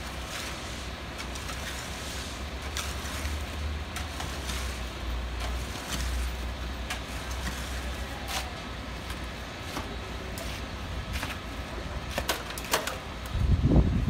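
Concrete mixer truck running with a steady low rumble as it discharges down its chute, with scattered knocks and scrapes from workers' tools in the wet concrete. A louder, rougher sound sets in near the end.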